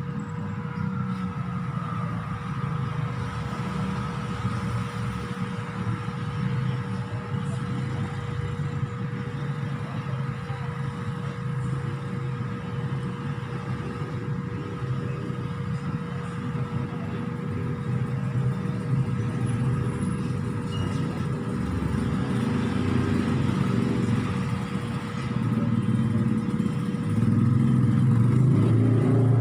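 A steady motor drone with a constant hum tone over a rough low rumble, growing louder over the last few seconds.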